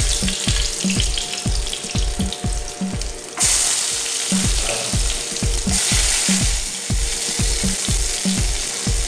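Sliced garlic sizzling in hot oil in a frying pan as it is sautéed. The sizzle grows louder from about three and a half seconds in and eases a couple of seconds later. Background music with a steady beat plays underneath.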